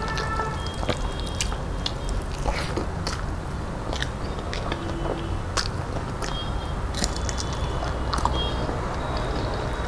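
Close-up mouth sounds of chewing and smacking on rice and dal eaten by hand, with soft wet squishing as the rice is mixed with the fingers. Many short irregular clicks and smacks over a steady low hum.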